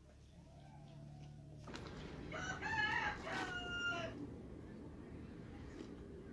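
Domestic chicken crowing once: one drawn-out call of nearly two seconds.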